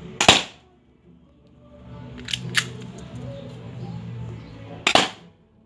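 Airsoft gun firing twice: two loud sharp shots nearly five seconds apart, with a pair of lighter clicks in between.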